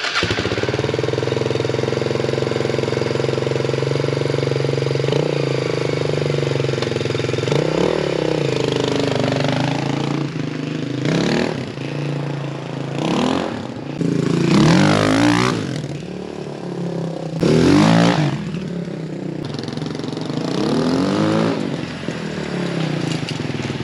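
Suzuki DR350SE dirt bike's single-cylinder four-stroke engine, just started, idling steadily for about five seconds and then revving up and down repeatedly as the bike rides off, in several rising-and-falling sweeps, the loudest about two-thirds of the way through.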